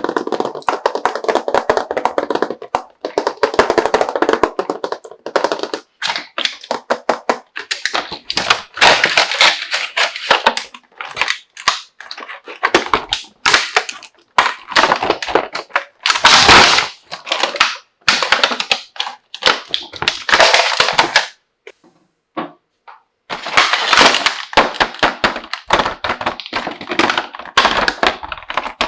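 Small plastic toy tea cups and tea-set pieces being handled and unpacked: a dense, irregular run of clicks, taps and light knocks as plastic pieces touch one another, with short pauses.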